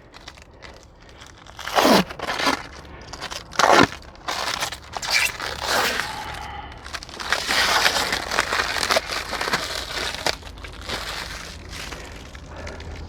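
Packaging being handled: plastic and padding rustling and crinkling in irregular bursts, with two quick swishes early on and a denser spell of crinkling in the middle.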